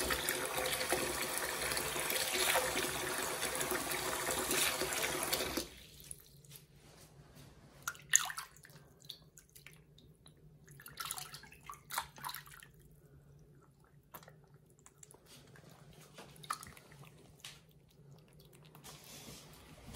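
Water pouring from a bathroom sink tap into a filled basin, shut off abruptly about six seconds in. After that, small scattered splashes and sloshing of water as hands wash a kitten in the sink.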